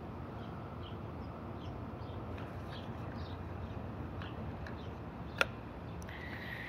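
Quiet outdoor background with faint, short bird chirps repeating every half second or so. A single sharp click a little over five seconds in is the loudest sound, and a steady high-pitched tone begins near the end.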